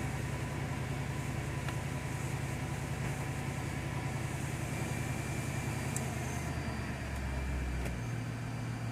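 The 2002 Mercedes CL500's 5.0-litre V8 idling steadily on new spark plugs, coil packs and plug wires, just after start-up, as the fast idle comes down. Its low hum shifts in pitch about seven seconds in, and it runs smooth, with no misfire or rough idle.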